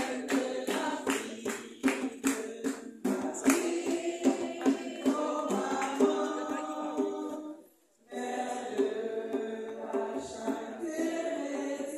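Choir singing a hymn. A percussion beat is struck in steady time through the first few seconds and thins out after that. The sound breaks off briefly about eight seconds in, then the singing goes on.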